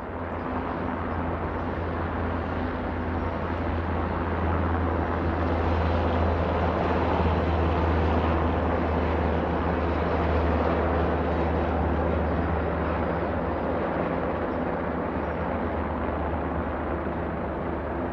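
Coast Guard helicopter flying past, a steady rotor-and-engine noise with a low hum that swells to its loudest about halfway through and then eases slightly.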